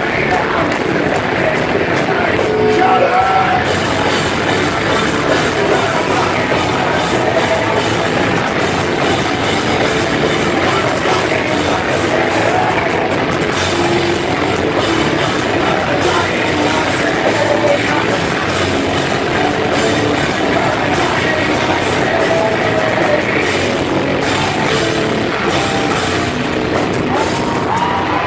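A heavy rock band playing loud and steady through a live concert sound system, with drums and a singing voice at times.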